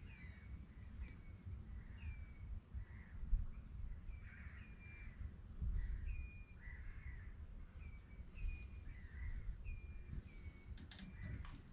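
Birds calling across the marsh: a string of short, high calls, about one every half second to a second, over a steady low rumble.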